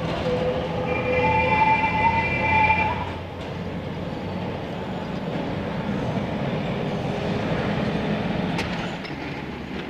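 Calcutta electric street tram running along its track, a steady noise of wheels and running gear. For about the first three seconds a held, ringing tone of a few pitches sounds over it, then stops.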